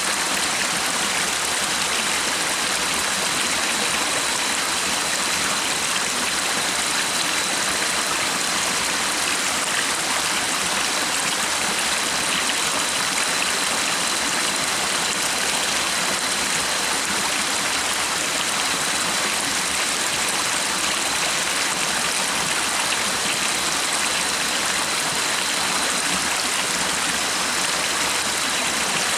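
Running stream water, a steady unbroken rush of flowing water.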